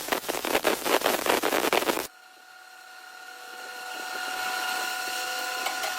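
Machine with a steady high whine; a rough, rattling noise full of rapid clicks runs over it and cuts off suddenly about two seconds in, after which the whine alone grows gradually louder.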